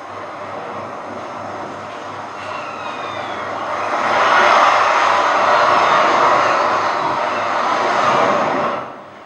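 Beach surf sound effect: the rush of a wave swelling over a few seconds, holding, then falling away just before the end.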